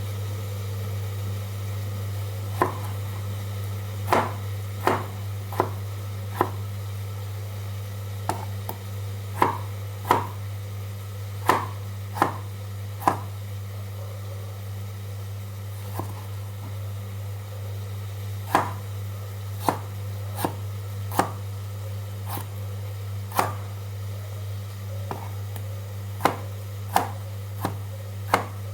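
Knife chopping on a cutting board in irregular single strokes, about one a second, over a steady low hum.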